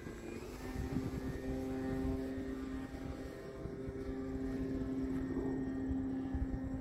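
Electric motor and propeller of an E-flite Carbon-Z Cub RC plane in flight, a steady hum that dips briefly about three seconds in, over a low rumble.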